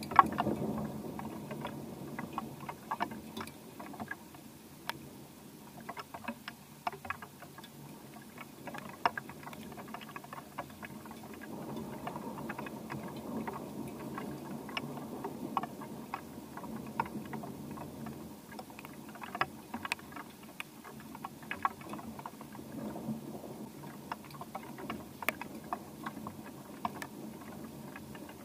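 Rain falling during a thunderstorm, with many irregular drip and patter clicks, over low rumbles of distant thunder that swell and fade several times.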